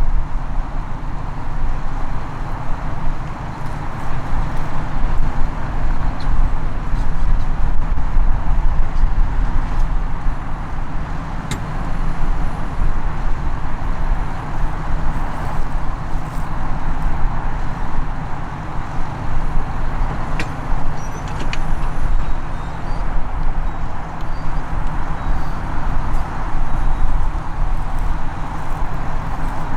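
Tractor engine running steadily under load.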